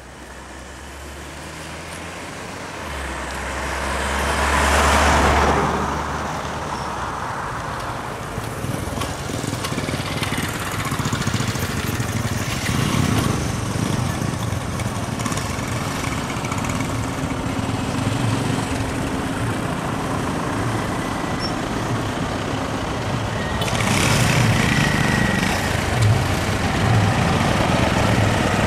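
Road traffic: engines running and vehicles passing on a paved road, one swelling in and fading about five seconds in. After that a low engine, such as a truck's, runs steadily with an even throb, and another vehicle swells in near the end.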